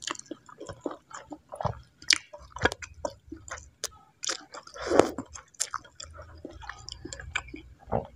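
Close-miked chewing of instant noodles and meatballs, with many short wet clicks and small crunches, and one louder mouth sound about five seconds in.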